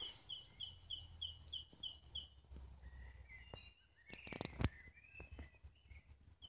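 Garden songbirds: one bird sings a fast repeated two-note phrase, high then low, about four pairs a second, stopping about two seconds in, while other birds chirp softly. About four and a half seconds in, a brief crackling scuff is the loudest sound.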